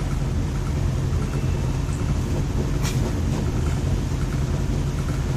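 Steady low mechanical hum and rumble, with a single brief click about three seconds in.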